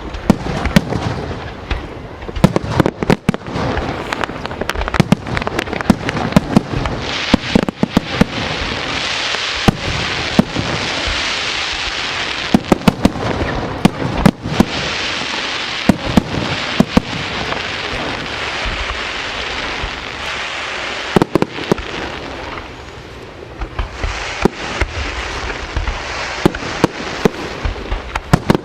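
Aerial fireworks display: shells bursting in rapid, overlapping bangs over a steady hiss, easing off briefly about three quarters of the way through before the bangs pick up again.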